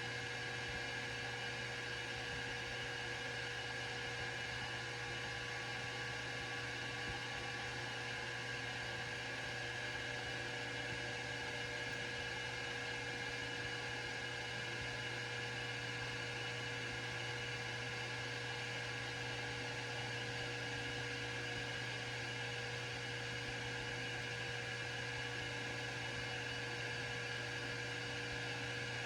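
Grizzly G0776 metal lathe running steadily under power, a constant hum with a thin whine.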